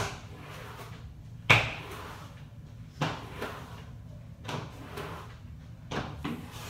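A run of short, irregular knocks and bumps, about eight in all, the loudest about a second and a half in, over a low steady hum.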